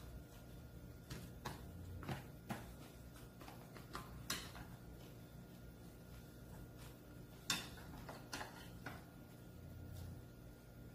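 Chopsticks clicking and tapping against ceramic side-dish plates and a lunchbox tray while food is picked up: scattered, irregular light clicks, the sharpest about seven and a half seconds in.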